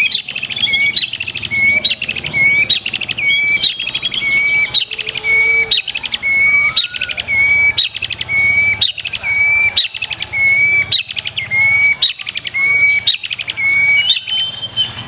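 White-rumped shama (black-tailed murai batu) singing loudly, repeating the same short phrase about once a second, each ending in a clear whistled note.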